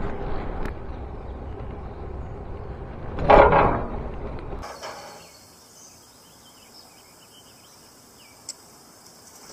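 Wind and tyre noise from a bicycle riding a paved path, with one loud, brief jolt about three seconds in as it rolls onto a steel bridge deck. Partway through the sound drops abruptly to quiet outdoor ambience with faint bird chirps and one sharp click near the end.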